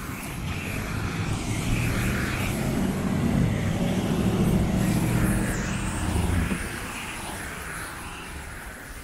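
A heavy engine drone passing by: it builds over a few seconds, is loudest in the middle, then fades away.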